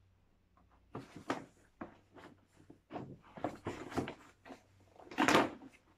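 A stapled-shut gift bag being worked open by hand: irregular crinkling and rustling with short sharp clicks as the top is pulled apart, starting about a second in and loudest near the end.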